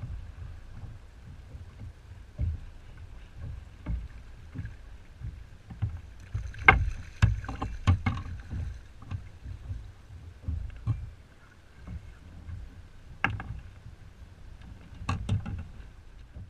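Wind rumbling on the microphone over a kayak, with sharp knocks and splashes as a puppy drum (young red drum) is brought alongside and scooped into a landing net. The loudest knocks come about seven to eight seconds in, with more near thirteen and fifteen seconds.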